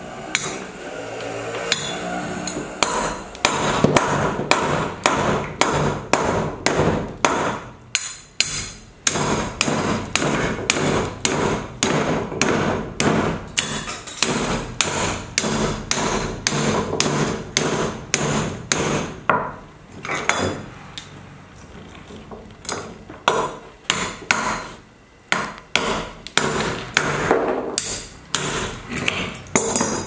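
Repeated hard knocks, about two a second, with a short pause about two-thirds of the way through before they start again.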